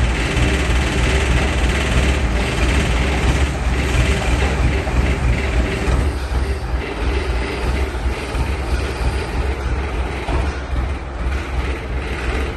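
Asphalt paver running: a steady low engine rumble under dense mechanical noise, easing slightly about halfway through.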